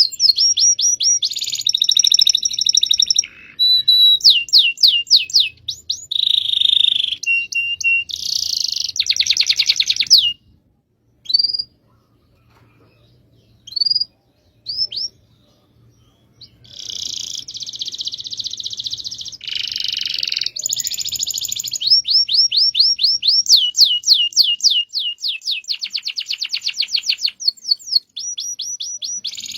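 Domestic canary singing a long rolling song: fast trills of rapidly repeated high sweeping notes, one phrase after another. About a third of the way through the song stops for roughly six seconds, with only a few single chirps, then the rolls resume.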